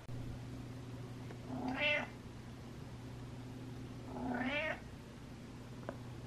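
Domestic cat meowing twice, each call about half a second long and the two about two and a half seconds apart, over a steady low hum.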